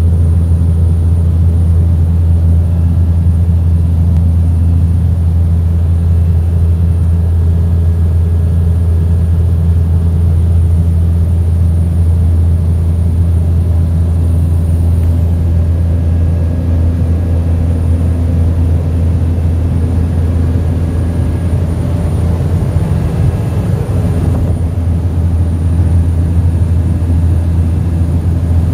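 Steady, loud low drone of a Cessna Grand Caravan EX's PT6A turboprop engine and propeller in flight, heard inside the cockpit.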